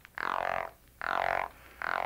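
Male Florida gopher frog giving its warning croak, the call a male makes when seized by another male, which tells the grasping male he has hold of another male. Three short croaks a little under a second apart, the third beginning near the end.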